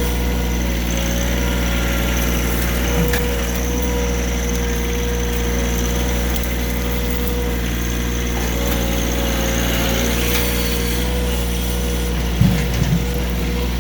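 John Deere compact tractor's three-cylinder diesel engine running steadily, with a couple of brief low thumps near the end.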